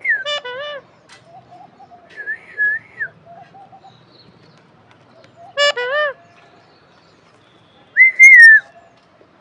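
Alexandrine parakeet whistling and calling in short bursts: curved whistled notes mixed with harsher calls, the loudest a held whistle near the end.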